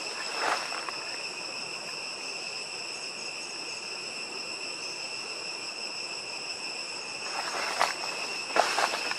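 A steady insect chorus, several high-pitched tones held without a break. Footsteps crunch through dry leaf litter about half a second in and again in the last two seconds.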